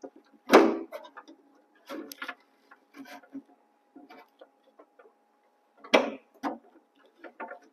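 Clear plastic bowl of a slush machine knocking and clicking against the machine's parts as it is worked by hand over the auger into its lock, with louder knocks about half a second in and about six seconds in. A faint steady tone runs underneath.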